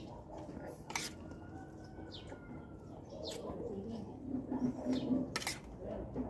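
Eating from a plate: a spoon clinks sharply against the plate a couple of times, with chewing in between. Birds give a few short, falling chirps.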